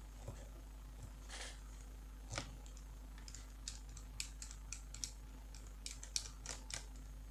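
Small screwdriver working the screws of a laptop's graphics-card heatsink: a scattering of faint, light metal clicks and ticks, more frequent in the second half, over a steady low hum.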